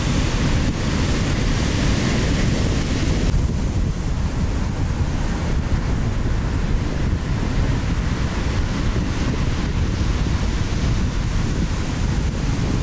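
Wind noise on the microphone over the steady wash of breaking ocean surf, with a deep rumble underneath; the higher hiss thins out about three seconds in.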